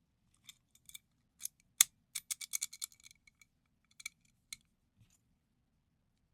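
Series of sharp small metal clicks and clinks from a combination padlock being handled and worked, the loudest single click a little under two seconds in, followed by a quick run of clicks.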